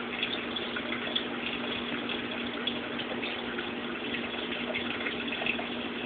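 Saltwater aquarium's circulating water running steadily: a constant splash and trickle with a low steady hum under it.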